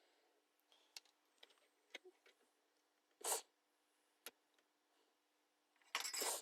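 Quiet clicks and taps of small parts being handled during hand assembly of a home-made Morse code paddle, over a faint steady hum. Two short rushes of noise come about three seconds in and near the end.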